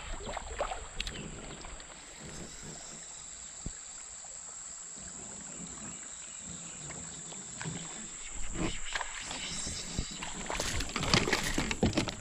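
Creek-side ambience from a fishing kayak: a steady high insect drone with scattered knocks of gear against the hull. The knocks and water sounds get busier and louder in the last few seconds.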